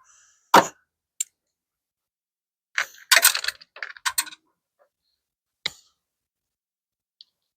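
Scattered sharp clicks and knocks from hand work on a car's front bumper and its fixings, with a short clatter about three seconds in.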